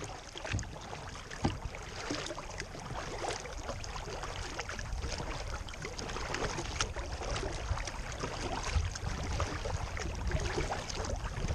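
Lake water lapping and splashing against a moving kayak's plastic hull, with a low wind rumble on the microphone and a couple of light knocks in the first two seconds.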